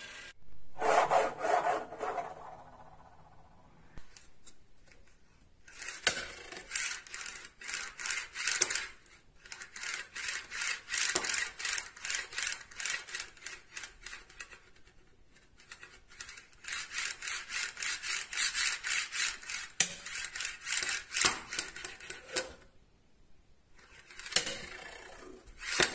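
Stack of neodymium block magnets scraped back and forth against a steel plate in quick rasping strokes, about five a second, in several bursts a few seconds long.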